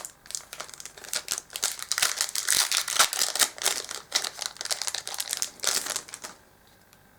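Foil Yu-Gi-Oh booster pack wrappers crinkling as packs are handled and opened: a dense run of crackling that stops about six seconds in.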